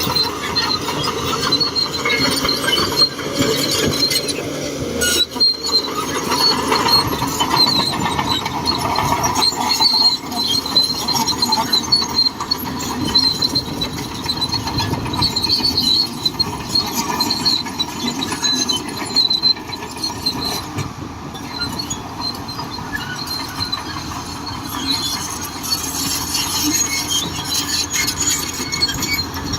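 Shantui DH17C2 crawler bulldozer working: its engine running steadily with metallic squealing and clanking from the steel tracks.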